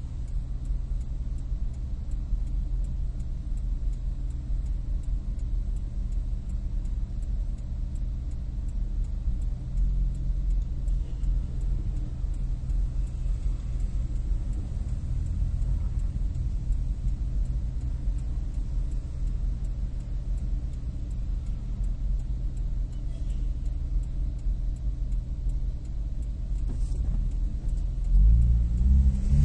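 Nissan Maxima's 3.5-litre V6 idling steadily with the slight misfire at idle that the owner is testing for; near the end the engine is revved up briefly.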